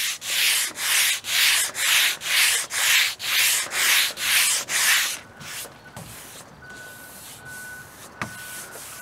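Sandpaper rubbed by hand over the primer on a steel entry door, in rhythmic back-and-forth strokes about two a second. The strokes stop about five seconds in and give way to softer, lighter rubbing. He is sanding the primer back until a black guide coat of spray paint is gone, stopping short of bare metal.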